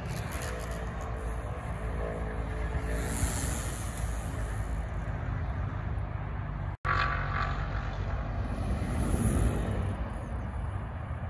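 Human-powered recumbent trikes and a velomobile rolling on tarmac over a steady low rumble, with no engine sound. The sound breaks off for an instant about two-thirds of the way in. It swells near the end as the velomobile passes close.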